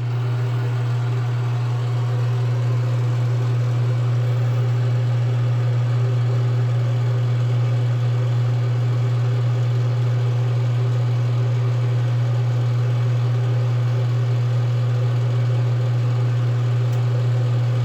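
A steady low motor hum, running evenly and unchanging throughout.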